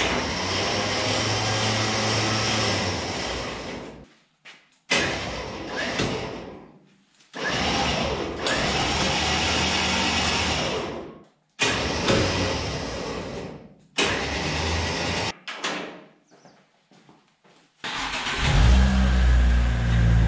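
Electric winch motor whining as it pulls the cable in, run in several bursts of a few seconds each that stop and start. About 18 seconds in, a larger engine starts up and runs with a deep rumble.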